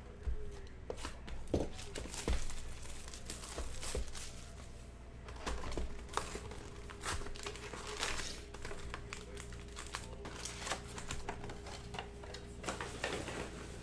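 Plastic wrapping crinkling and tearing as a Panini Prizm cello box of trading cards is opened and its cellophane-wrapped packs are handled and stacked. A few knocks in the first few seconds as the cardboard box is set down on the table.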